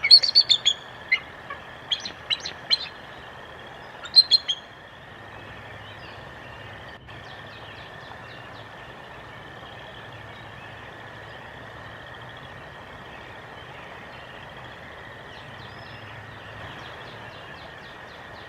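Small birds chirping in short, loud calls several times over the first few seconds, then fainter, repeated twittering over a steady, even outdoor hiss.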